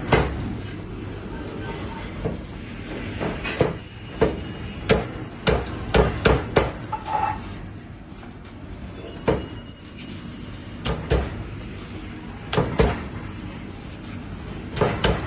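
Heavy Chinese cleaver chopping roast goose on a thick round wooden chopping block: sharp chops in quick runs of two to four strokes, with short pauses between.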